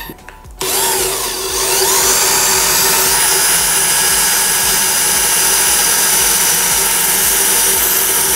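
INGCO 20V cordless impact drill starting up about half a second in, its motor whine rising in pitch over the next couple of seconds as the trigger is squeezed. It then runs steadily at speed while a bit drills into a metal box section.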